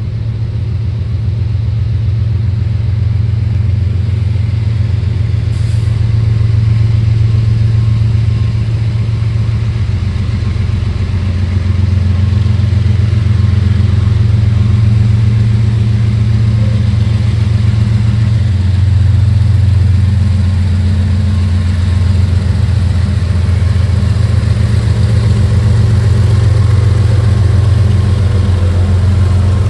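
CSX diesel-electric freight locomotives pulling out of the yard under power, their engines a loud, steady low drone. The drone grows louder over the first several seconds as the units approach, then holds as they pass close by.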